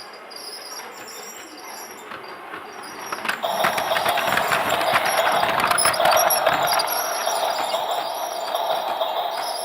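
Toy train running: faint at first, then about three seconds in a steady whine starts abruptly with rapid rattling clicks, and the sound becomes much louder and stays so.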